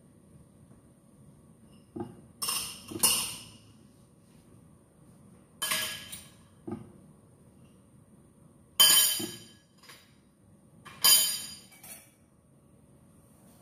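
Dishes and a metal pot clinking as they are dried by hand and set down on a dish rack: a few sharp clinks, each with a short ring, spread out with pauses between them.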